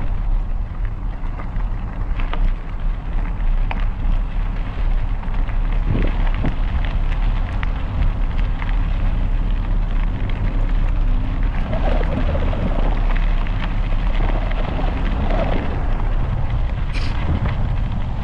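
Mountain bike tyres rolling steadily over a gravel path, a crackly crunch with scattered small clicks, under a steady low rush of wind on the microphone.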